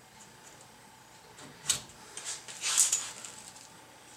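A few sharp metallic clicks and scrapes as brake parts and tools are handled at a truck's bare front wheel spindle: one click about halfway through, then a quick cluster of clinks, the loudest near the end.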